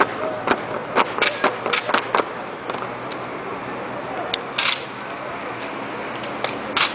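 Sharp knocks and slaps of an armed drill team's movements on asphalt: boot heels stomping and drill rifles being slapped and struck on the pavement. A quick cluster of strikes comes in the first two seconds, then a few single strikes.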